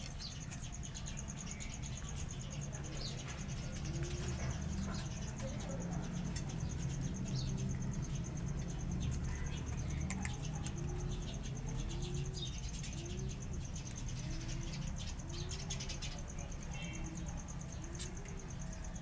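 A cat crunching dry kibble from a plate: irregular crisp clicks over a low, steady rumble.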